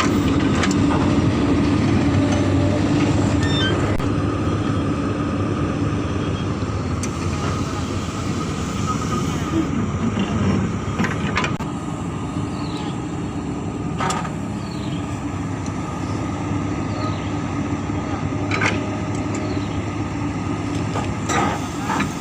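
Hydraulic excavator's diesel engine running steadily, with a few sharp knocks now and then.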